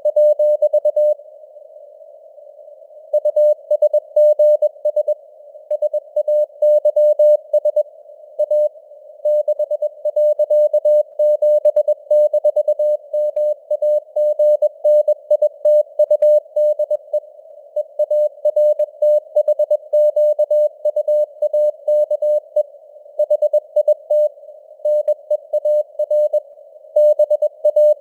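Morse code (CW) sent at 21 words per minute: a single mid-pitched beep keyed on and off in dots and dashes, over a narrow band of simulated radio hiss. About a second in there is a pause of about two seconds before the keying resumes.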